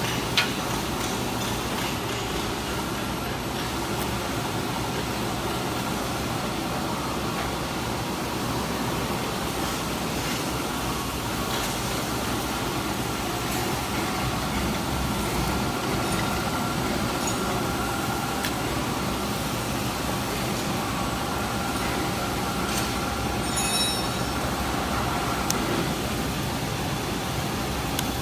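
Pipe welding rotator running: a steady mechanical rumble with faint steady whines from its drive, and a sharp click about half a second in.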